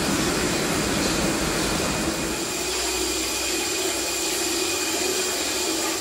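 Steady rush of running water pouring into an open-air hot-spring bath, with a faint steady hum underneath.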